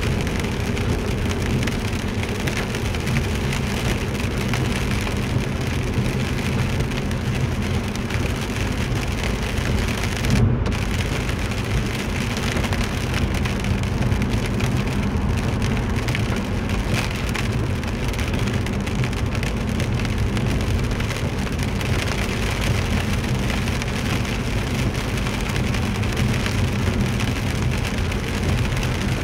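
Steady rain on a moving car together with the hiss of tyres on a wet road, heard from inside the cabin over a constant low road rumble.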